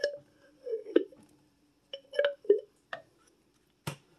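Scattered clinks and taps of a wooden spoon against the gravy jar and the crockpot's insert as thick beef gravy is scraped out and spread over the meat, with a few soft wet plops. A faint steady hum runs underneath.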